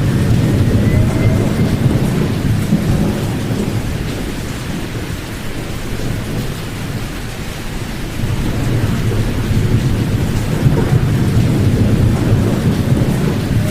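Rain with low, rolling thunder, weighted to the low end with the highs muted. The rumble eases off around the middle and builds again.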